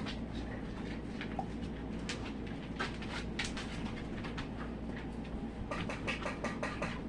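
Faint rustling and soft ticks of fabric scraps being handled and laid together, scattered through, over a steady low hum.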